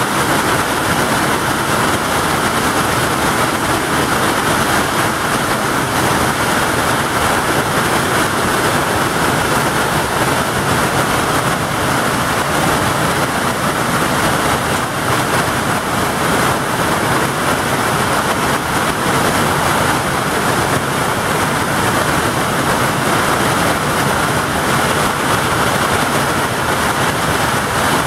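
Heavy wind-driven hail pelting down on the ground, a water tank and roofs: a dense, steady roar with no let-up.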